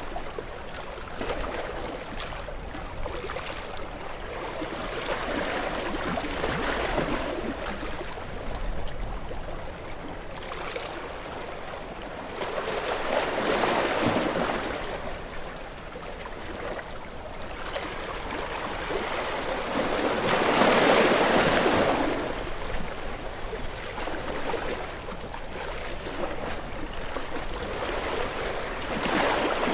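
Sea waves washing onto the shore over a steady hiss of surf. Every several seconds a wave swells up and falls away again; the biggest comes about two-thirds of the way through.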